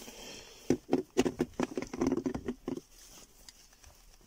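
Hands handling the device's coiled black power cable and picking at the tie that binds the coil: a quick run of rustles and small clicks, thinning out after about three seconds.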